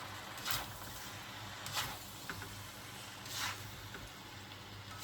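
Glass noodles and vegetables being stirred in a bowl: four short, soft swishes about a second and a half apart over a low steady hum.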